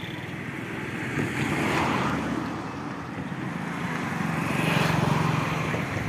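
Road traffic passing close by: two vehicles rush past, one peaking about two seconds in and another about five seconds in, the second with a low engine hum under it.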